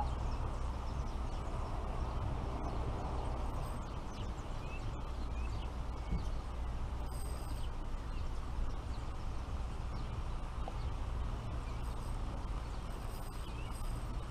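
Steady low outdoor rumble, with a few faint short high bird chirps scattered through it.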